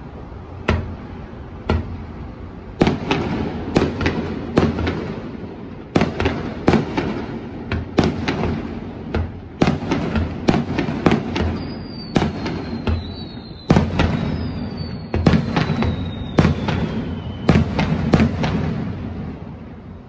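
Aerial fireworks display: shells bursting in a rapid series of sharp booms with a low rumble between them. A few high whistles slide down in pitch midway.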